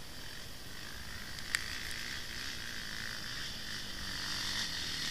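Steady high-pitched chorus of frogs calling from the wet bush, with faint dirt bike engines approaching underneath. A single sharp click comes about a second and a half in.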